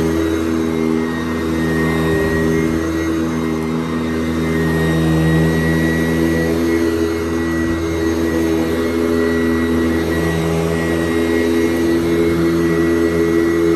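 Sanitaire SC889B upright vacuum cleaner running steadily over carpet, its motor giving a constant hum with small swells in level as it is pushed back and forth.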